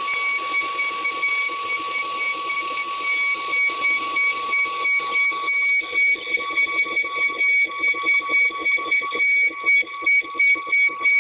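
CNC router running with a steady high whine over a hiss; from about halfway the sound starts pulsing quickly in and out.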